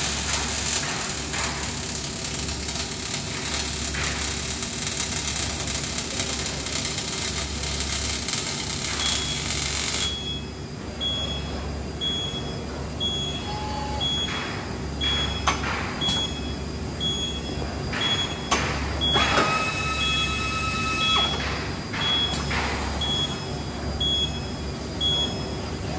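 Robotic arc weld crackling and hissing steadily for about ten seconds, then cutting off suddenly as the weld ends. After that, a repeating short high beep runs on, with scattered clanks and a brief electronic tone a little past two-thirds of the way through, over a low pulsing hum.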